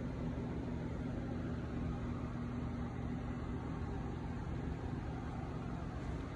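Steady city background heard from a high balcony: a constant low rumble of distant traffic with a level low hum running under it.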